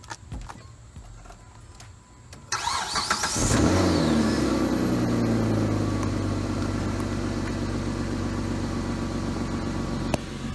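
2004 Chrysler Sebring engine cranked by the starter about two and a half seconds in and catching on the first try on a freshly fitted battery. It revs up briefly, then settles into a steady idle.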